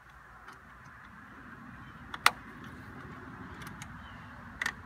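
Clicks of a coolant hose and its clamp being worked by hand onto a thermostat housing outlet: one sharp click about two seconds in and two quick clicks near the end, over a steady low rumble.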